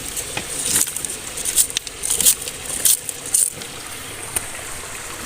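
Hands working in shallow water and mud: a run of short, irregular splashes and wet clicks, about five of them stronger than the rest.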